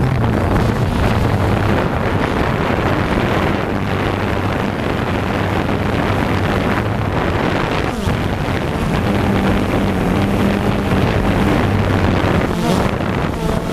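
DJI Phantom 2 quadcopter's motors and propellers heard from on board: a steady whirring hum with rushing wind noise from the prop wash.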